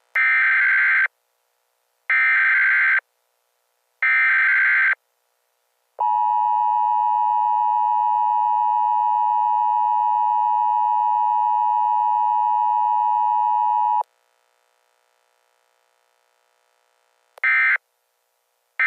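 Emergency Alert System Required Weekly Test: three one-second bursts of screechy digital header data, two seconds apart, then the steady two-tone attention signal held for about eight seconds. After a few seconds of quiet, a short end-of-message data burst comes near the end.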